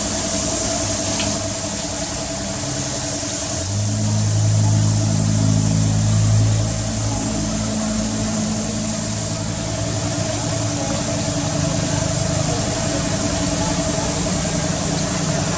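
A motor running steadily, with a constant high hiss over it. A deeper hum swells from about four seconds in and eases off around nine and a half seconds.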